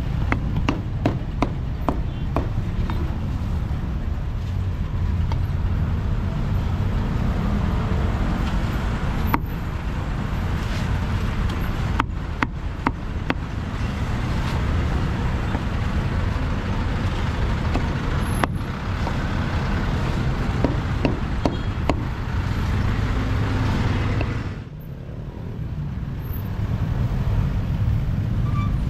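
Steady roadside traffic rumble from passing motorbikes and cars, with sharp knocks now and then of a cleaver chopping roast pork on a wooden chopping block.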